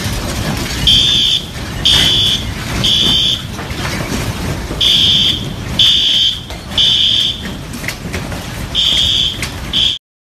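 Building fire alarm sounding its pulsing high beep in the three-beep evacuation pattern: three beeps, a pause, then three again, about every four seconds, over steady low background noise. The sound cuts off to silence near the end.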